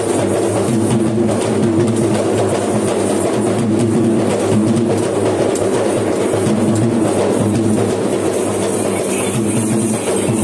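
Sri Lankan low-country ritual dance drumming: hand drums beaten in a dense, fast, unbroken rhythm.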